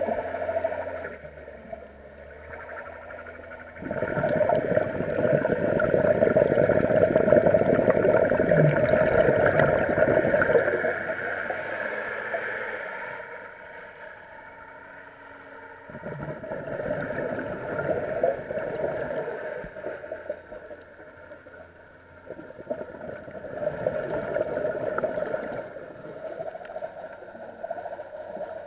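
Scuba diver breathing through a regulator underwater: three long bubbling, crackling bursts of exhaled air, each several seconds long, with quieter stretches between them. A steady faint hum lies underneath.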